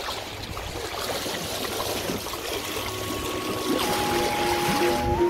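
Water rushing and splashing along the hull of a sailing yacht under way, heard right at the waterline. Music with steady tones fades in about halfway through.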